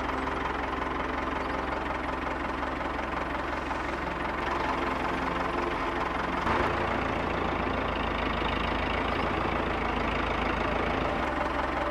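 Tractor engine running steadily with a low, knocking chug, its tone stepping up slightly about six and a half seconds in.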